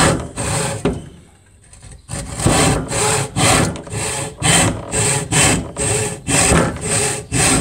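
Tenon saw cutting through a block of wood held in a vise, in steady, unhurried rasping strokes about two a second, with a pause of about a second near the start. The saw is left to do the work rather than forced through the cut.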